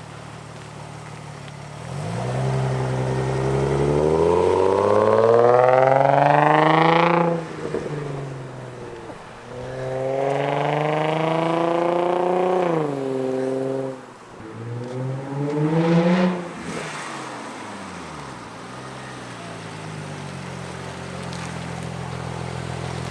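Nissan 350Z's 3.5-litre V6 through a newly fitted Tomei dual exhaust, idling and then revved three times: a long climb in pitch over about five seconds that drops off sharply, a second rev that rises and falls, and a short blip before it settles back to idle.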